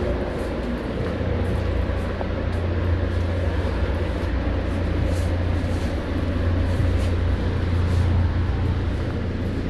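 Steady low hum inside an NJ Transit Comet IV commuter coach while the train stands in the station, with a few faint ticks.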